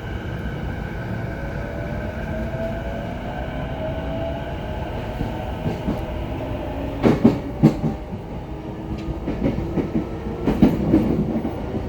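JR East E233 series 0 electric train accelerating, heard from inside the car: the traction motors give a whine that rises in pitch. From about seven seconds in, the wheels clack heavily over rail joints in a quick run of knocks.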